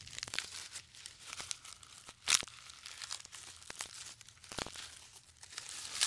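Giraffe stripping leaves and twigs from a tree branch and chewing them: irregular crackling, tearing and snapping, with the loudest snap a little over two seconds in.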